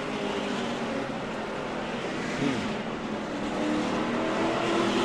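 NASCAR Cup car's V8 engine running hard at racing speed, heard through the onboard camera. The pitch dips briefly about halfway through and then climbs again.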